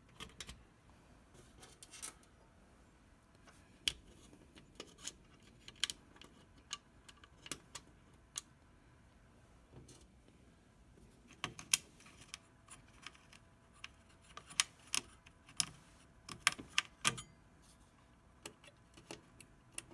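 Irregular small clicks and light rattles of screws and plastic and metal parts being handled while a TV's back panel is fitted back on, in scattered clusters.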